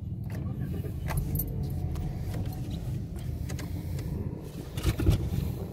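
Toyota Yaris engine idling, heard from inside the cabin as a steady low rumble, with a few light clicks from the controls and a thump about five seconds in.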